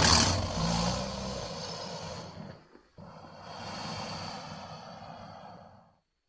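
Two designed creature sound effects for Titanoboa, the giant prehistoric snake. The first is a loud, low rasping call that starts suddenly and fades over about two and a half seconds. After a brief gap comes a quieter, noisy, hiss-like sound that fades out about six seconds in.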